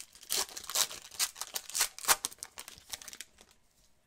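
The wrapper of a basketball trading-card pack being torn open and crinkled by gloved hands: a quick run of crackles that stops about three seconds in.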